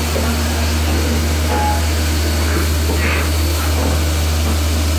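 CNC vertical machining centre milling metal parts with an end mill: steady machine noise over a constant low hum.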